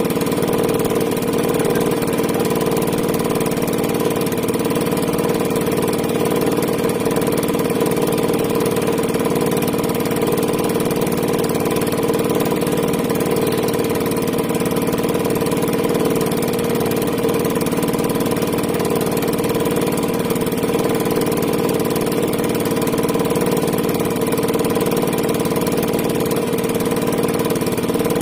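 A small engine idling steadily, its pitch and loudness unchanging.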